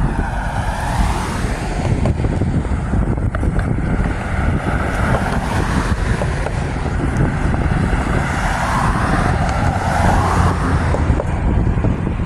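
Steady road and wind noise from a vehicle moving along a highway among other traffic, swelling twice as the sound rises and falls.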